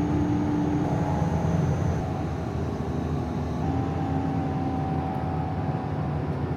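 Steady low rumble of a moving vehicle, with a faint hum running through it.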